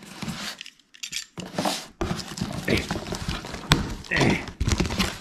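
Cardboard parcel being pulled open by hand: the flaps and packing tape scrape, crinkle and tear, with one sharp snap about two-thirds of the way in.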